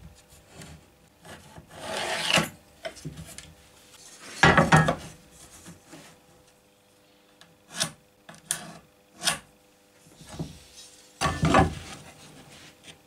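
Wood being rubbed and scraped by hand in irregular strokes, with three short sharp knocks in the middle.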